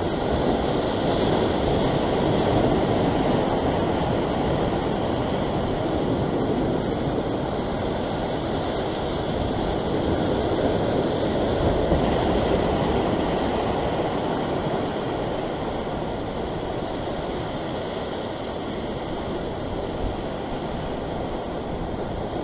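Ocean surf breaking and washing over shoreline rocks: a steady rush of foaming water that swells a little a few seconds in and again about halfway through.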